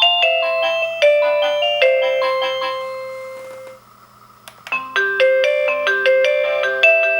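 Avantek D-3B wireless doorbell receiver playing an electronic chime melody, which fades out about halfway through. A click follows, and a different chime melody starts.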